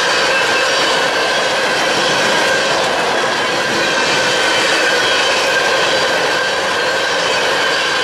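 Empty taconite ore cars of a freight train rolling past at speed: a steady rushing rattle of steel wheels on rail, with a faint steady whine above it.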